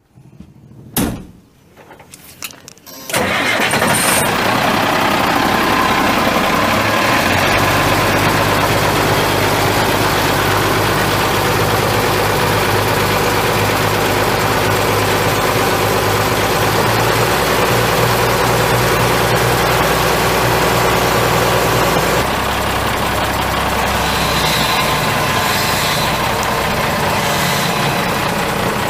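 International DT466 six-cylinder diesel engine of a 1984 International S1900 truck being started: a click about a second in, a short crank, then the engine catches about three seconds in and runs steadily at idle. Its note drops slightly about 22 seconds in.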